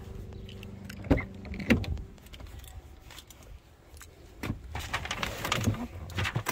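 Audi A3 driver's door being opened: two sharp latch clicks about a second in and again just under two seconds in. Rustling and light knocks follow near the end.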